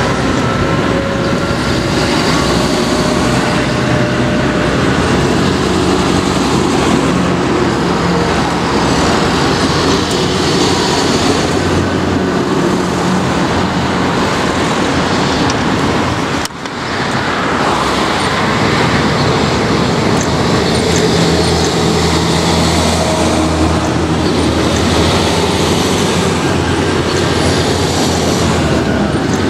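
Modern farm tractors, among them a Massey Ferguson and a John Deere, driving past one after another with their diesel engines running and their big tyres on tarmac, with cars passing between them. The sound dips and breaks off for an instant a little past halfway.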